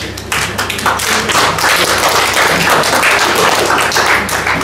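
Audience applauding, many hands clapping together, starting a moment in and continuing steadily.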